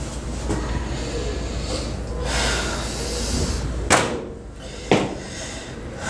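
Two sharp bangs about a second apart, a metal restroom stall door or partition being knocked or slammed, each with a short ringing tail in the tiled room. A steady hiss runs underneath, with a low hum that cuts off at the first bang.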